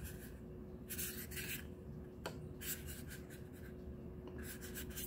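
Handling noise: hands rubbing and shifting a small portable SSD and its plastic packaging, in a few short rustling bursts with a sharp click a little over two seconds in, over a faint steady hum.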